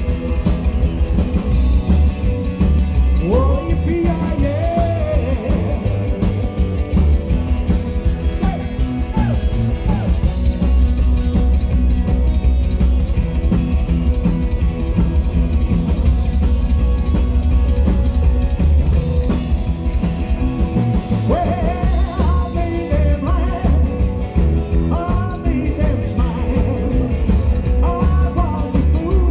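Rockabilly band playing live: electric guitars, upright double bass and drums.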